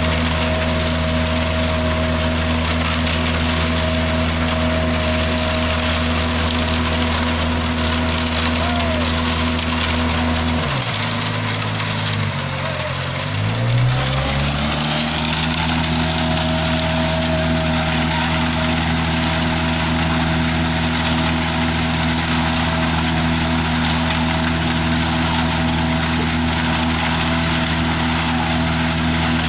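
Engine of a self-loading concrete mixer running steadily. About eleven seconds in, its pitch drops sharply and climbs back up over a few seconds, then it runs steady again.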